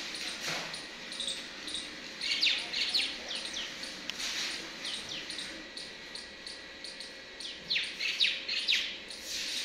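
Small birds chirping: quick runs of short, falling chirps, one group about two to three seconds in and another near the end.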